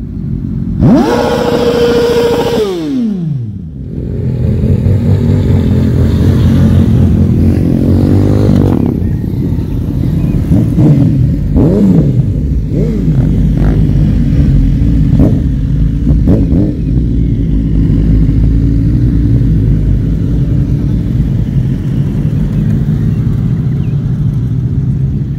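Several motorcycles riding past at low speed, their engines running in a steady low drone. About a second in, one bike's engine is held at high revs and then falls sharply away; later, brief rev blips rise and fall over the drone.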